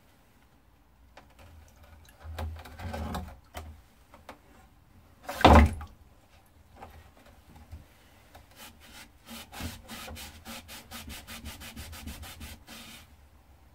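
A rag is scrubbed along the steel blade of a bill hook knife, wiping off rust softened by a vinegar soak. The second half is a run of quick back-and-forth strokes, several a second. About halfway there is a single louder knock.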